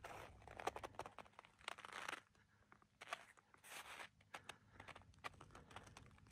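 Faint footsteps crunching on icy snow, each step a short crackly crunch, coming about once a second with short gaps.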